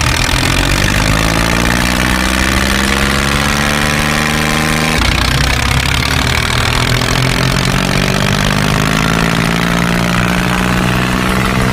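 Tractor engine running steadily. Its pitch slides slowly down, steps back up about five seconds in, and then creeps higher.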